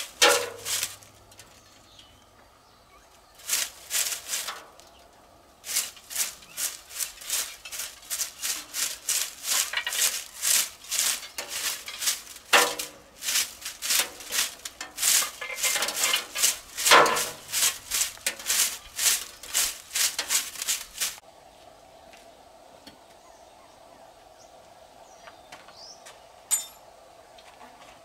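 Bristle hand broom sweeping over clay roof tiles in quick repeated strokes, with short pauses early on; the sweeping stops about three quarters of the way through.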